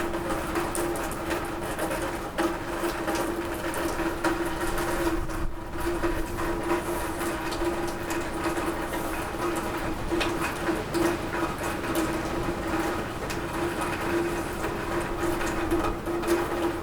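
Rain falling on a roof: a dense, steady stream of drops hitting it, over a steady hum.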